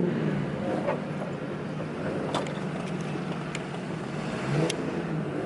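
A car engine running with a steady low drone, its revs rising briefly near the end.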